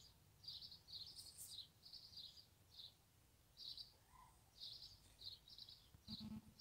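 Faint, high bird chirps, short notes repeating irregularly about two or three times a second over otherwise near silence.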